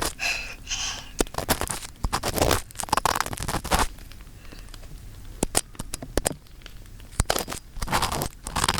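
Earpick scraping and crunching inside the ear of a binaural dummy-head microphone, in irregular short strokes with sharp clicks between them.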